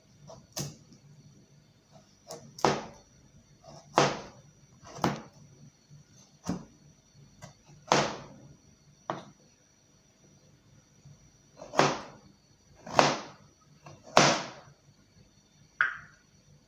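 Knife peeling bitter kola nuts: about a dozen short, irregular scrapes and knocks.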